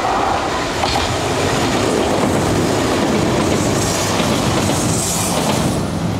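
Kintetsu electric train running past on a river bridge: a loud, steady rumble with wheels clattering over the rail joints. A higher hiss swells a little past halfway.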